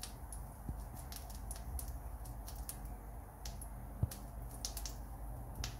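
Butter crackling and sizzling in a frying pan under a toasting sandwich: irregular sharp little pops over a low steady hum. One light knock about four seconds in, as the plastic spatula comes off the pan.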